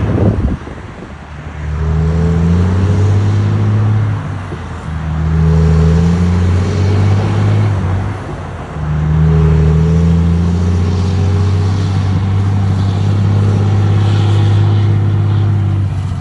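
Volvo FH truck's diesel engine revved three times, its exhaust rumbling, each rev rising slightly in pitch. The third rev is held for about seven seconds before dropping off at the end, and a brief loud burst comes at the very start.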